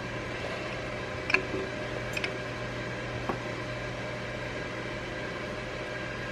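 Steady hum of a Ninja Foodi Grill's fan running as it preheats, with a few faint light clicks from hands working in a glass bowl.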